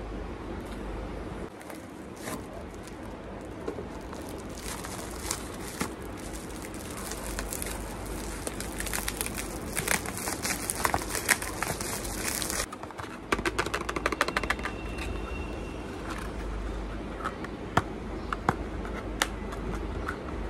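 Clear plastic packaging crinkling and being torn open by hand, with cardboard and paperboard handled in between. The crinkling is densest around the middle and cuts off suddenly, then gives way to scattered clicks and rustles.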